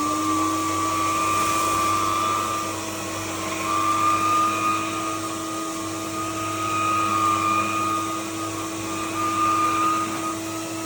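Electrolux Lux 9000 canister vacuum cleaner running steadily just after switch-on, its motor holding a high whine with small swells in loudness.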